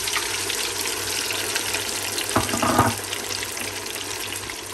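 Thick-cut chips sizzling in hot oil on their first fry: a steady crackling hiss, with a brief louder burst about two and a half seconds in.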